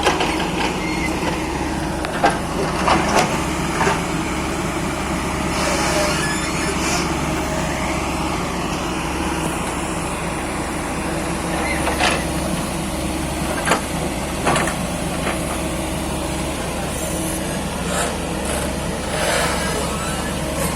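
Excavator's diesel engine running steadily while loading soil into a truck. Scattered knocks and clanks come in small clusters a couple of seconds in, around the middle and near the end.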